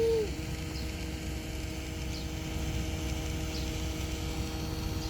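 Small battery motor of a toy bubble machine humming steadily, with a faint high tick about every second and a half.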